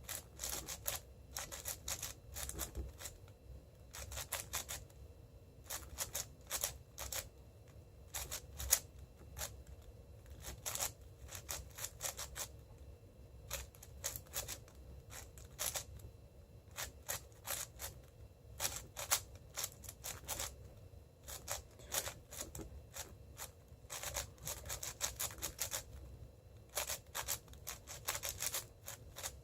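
Cubicle Red M 6x6 speedcube being turned quickly by hand: quick clusters of light plastic clicks and clacks as the layers are twisted, with short gaps between, while the centres are being built.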